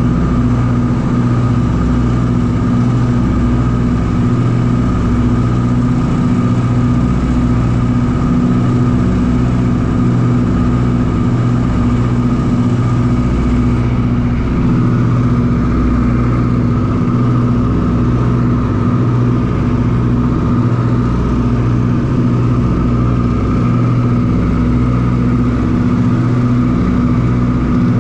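Ford Tri-Motor's radial engines running steadily in flight, heard from inside the cabin: a loud, even drone with a low throb and no change in power.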